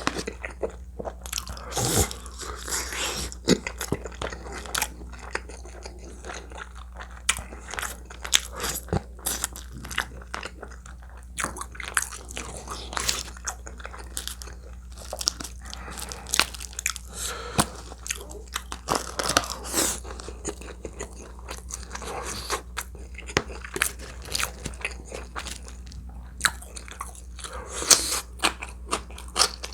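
Close-miked chewing and biting of food, with many irregular sharp clicks and crunches, over a steady low electrical hum.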